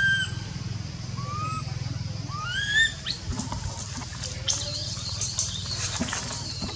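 Baby macaque giving high, arching distress cries: one at the start, one about a second in and a rising one near three seconds. From about three seconds on, branches and leaves rustle and crackle as it scrambles along the branch.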